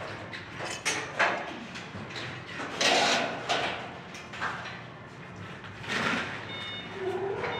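Light-gauge steel studs and track being handled and fitted overhead: a string of irregular metallic knocks, clanks and scrapes. A pitched, gliding sound comes in near the end.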